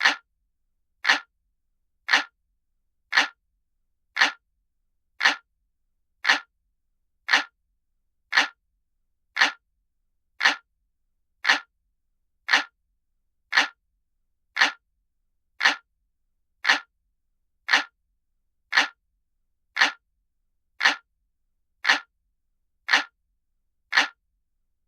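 Looped analog clock ticking sound effect: single sharp ticks, evenly spaced at about one a second, with silence between them.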